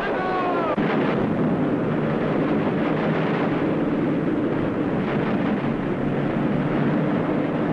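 Steady rumbling roar of naval battle noise on an old film soundtrack, with a short falling whistle shortly after the start.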